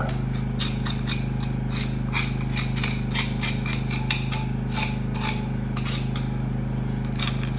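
Scattered light clicks and taps of metal engine parts being handled, over a steady low hum.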